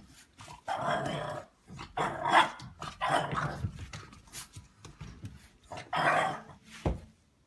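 A pet animal letting out four short, loud vocal outbursts, about a second apart, with a sharp knock near the end.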